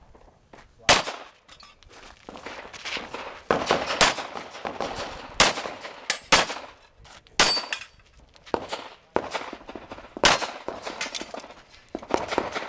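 Handgun shots fired at an uneven pace, about a dozen over the span, each with a short echo. A few shots are followed by a brief high ring from a struck steel plate.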